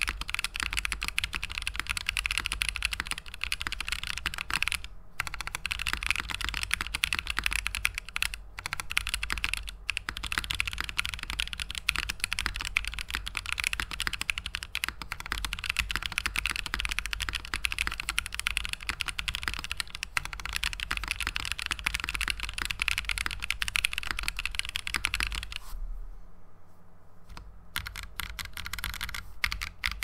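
Fast, continuous typing on a KeebsforAll Freebird TKL mechanical keyboard: lubed Gazzew Boba U4T tactile switches on an FR4 plate in a gummy O-ring mount, under GMK Space Cadet keycaps, giving a dense clatter of keystrokes without the hollow ping the board had before the gummy O-ring. The typing stops for a moment about four seconds before the end, then picks up again.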